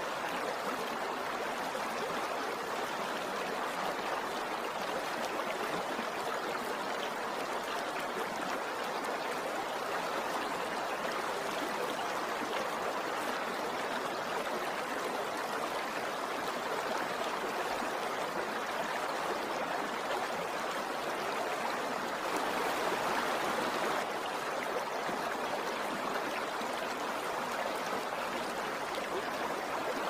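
River water rushing steadily over rapids, an even flowing noise that swells slightly about two-thirds of the way through.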